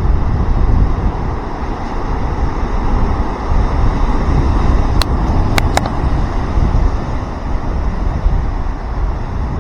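Wind buffeting the microphone over the steady rush of ocean surf, with three quick clicks close together about five seconds in.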